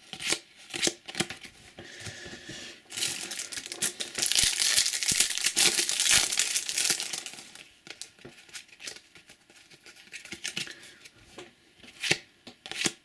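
Foil trading-card booster pack being torn open and crinkled, a dense crackling lasting about four seconds in the middle, with scattered ticks and taps of cards being handled before and after.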